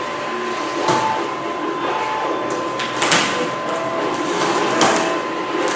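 Cardboard packaging being handled and opened: a few short scrapes and knocks over a steady background hiss.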